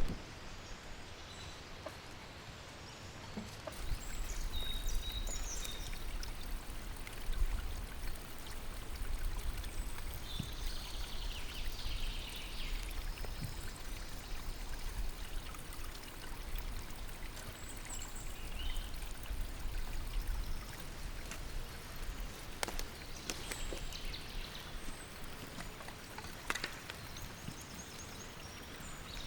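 A river flowing steadily, a continuous rush of water, with a few faint high chirps now and then.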